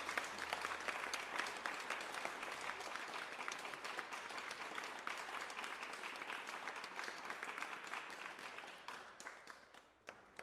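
Applause, a dense steady patter of many hands clapping, that fades out about a second before the end.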